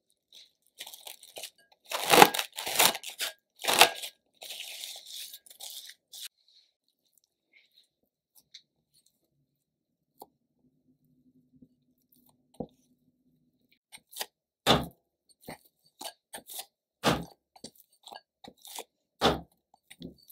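Soft, sticky milk-and-egg bread dough being kneaded by hand in a glass bowl. Near the start there is a burst of wet squelching and tearing. After a quiet stretch come short dull thuds, about one a second, as the dough is pressed and folded against the bowl.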